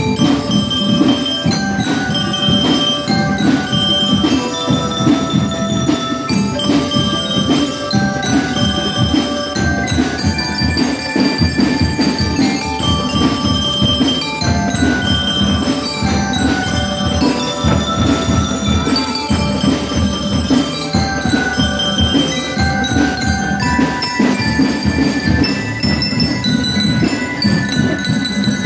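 School drum-and-bells marching band playing a tune: mallet bells ring out the melody over steady drumming.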